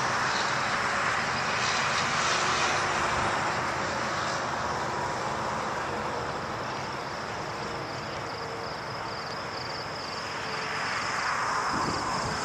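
Road traffic from a nearby multi-lane highway: a steady wash of tyre and engine noise that swells and fades as vehicles pass, louder at the start, easing off in the middle and rising again near the end.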